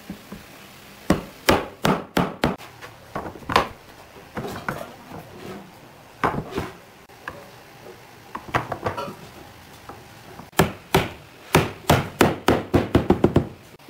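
Wooden chair parts being knocked into their glued joints: a series of sharp wooden knocks in irregular groups, ending in a quick run of taps near the end.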